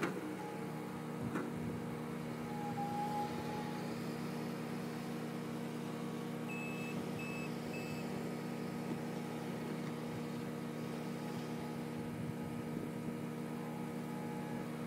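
Skid steer loader's engine running steadily as it works around a compost screener, with a couple of knocks near the start as the bucket is emptied over the screener. About halfway through come three short high beeps from its reversing alarm.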